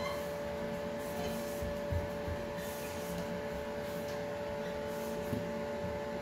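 Cloth wiping along the chrome tubes of a heated towel rail: soft rubbing strokes that come and go, over a steady hum.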